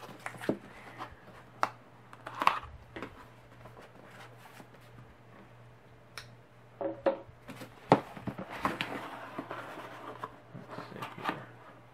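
A cardboard mailer box being handled and opened on a cutting mat: scattered knocks and taps of cardboard being turned over and set down, with a longer stretch of cardboard scraping and rustling about two-thirds of the way in.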